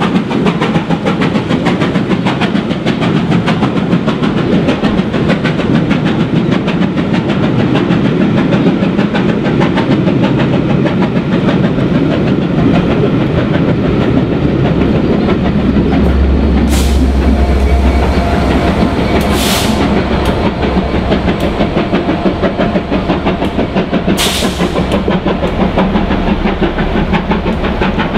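A long train of coaches rolling past with a steady clatter of wheels over the rails, under the hard-working exhaust of BR Britannia Class 4-6-2 no. 70000, which is climbing a 1 in 60 bank with 13 coaches and a dead diesel behind. From about halfway a deep low drone comes in as the Class 67 diesel on the rear draws near, with a few brief hisses.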